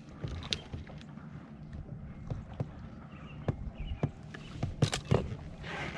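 Scattered knocks and taps on a bass fishing boat over a steady low hum, with a few louder knocks about five seconds in.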